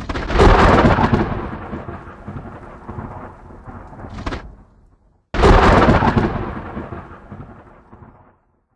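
Two loud thunder-like booms, each starting suddenly and rumbling away over about three seconds, with a short hiss just before the second.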